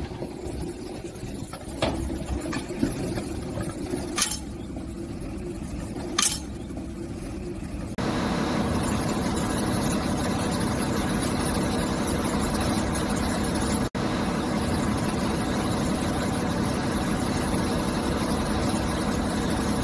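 Mobile crane truck diesel engines running: first a low idle with a few sharp metallic clinks, then, after an abrupt change about eight seconds in, a louder, steady engine run.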